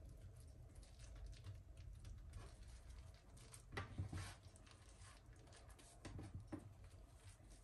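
Faint rustling and light taps of a thin spring roll pastry wrapper being folded and rolled by hand on a wooden board, with a short, louder cluster of rustles about four seconds in.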